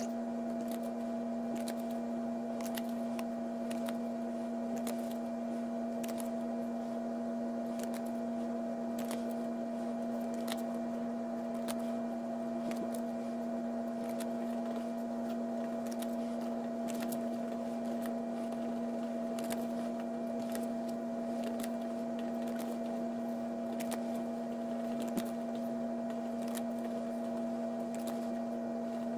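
Steady hum with two held tones, one low and one higher, with faint scattered ticks and one slightly louder click near the end.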